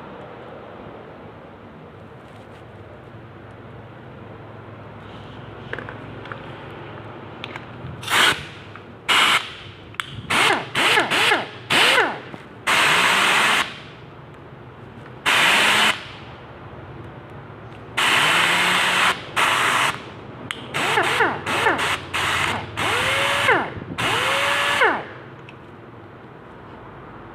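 Pneumatic impact wrench triggered in a series of short bursts, each a loud rush of air with a whine that rises as the air motor spins up and falls as it slows.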